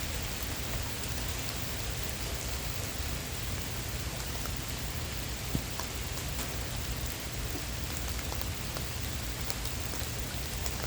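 Steady rain falling, with scattered sharp ticks of individual drops striking close by over a low, even rumble.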